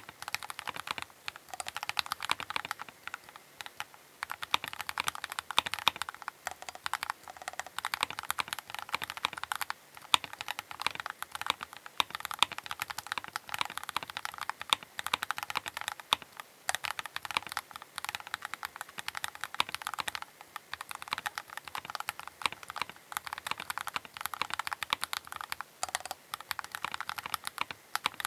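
Keychron K8 Pro mechanical keyboard being typed on quickly and continuously, a dense run of key clicks and clacks.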